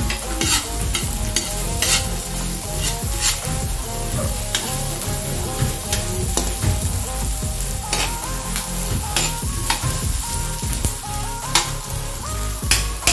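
Chopped onion, garlic and ginger sizzling in a little hot oil in an aluminium wok. A spatula stirs them and scrapes or taps against the pan every second or two.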